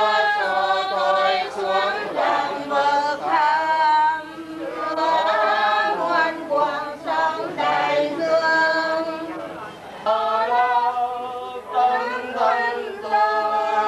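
A group of mixed voices singing a slow hymn for the dead in unison, unaccompanied, in long held notes with brief pauses for breath.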